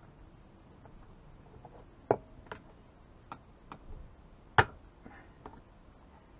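Scattered clicks and knocks of a screwdriver and plastic and metal chainsaw parts being handled while a two-stroke chainsaw is taken apart, with two sharper clicks about two and four and a half seconds in.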